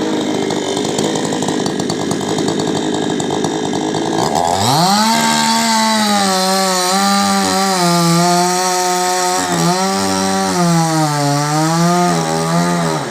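Chainsaw running, then revved up about four and a half seconds in and held at high speed cutting into a coconut palm, its pitch sagging and recovering under load. It falls away near the end.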